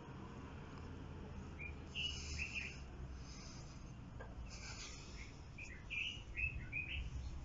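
Wild birds chirping in short calls, in a cluster about two seconds in and a busier one about six seconds in, over a steady low background rumble.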